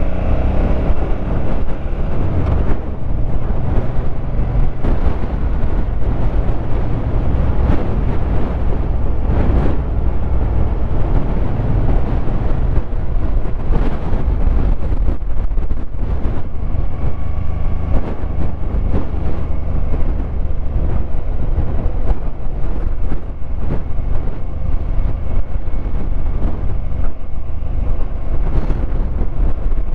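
Suzuki Boulevard M50's 805 cc V-twin engine running steadily while riding, with wind noise on the microphone.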